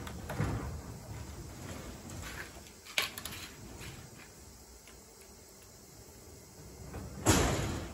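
Handling noises from a glass pane and its wooden sash being pressed and shifted into place: soft knocks and rattles, a sharp click about three seconds in, and a loud sudden rattle near the end.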